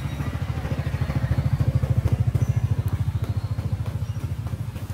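An engine running with a low, fast, even throb, growing louder to about two seconds in and then easing off a little.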